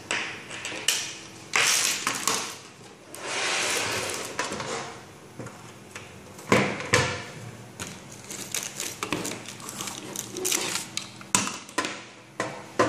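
Handling noise of cables and a plastic network video recorder on a desk: scattered clicks and knocks as plugs are fitted into the recorder's rear ports, with a longer rustle about three to four seconds in.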